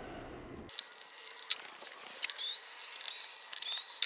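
Skil cordless screwdriver whirring in two short runs, each rising in pitch, backing screws out of a spindle's top plate. Before that come a few light clicks of small parts being handled.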